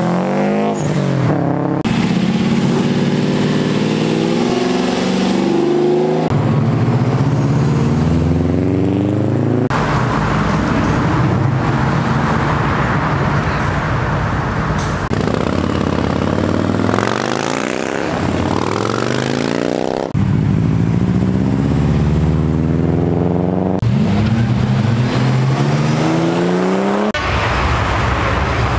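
Modified cars accelerating hard one after another, engines revving up and dropping at each gear change, with abrupt cuts from one car's pull-away to the next every few seconds.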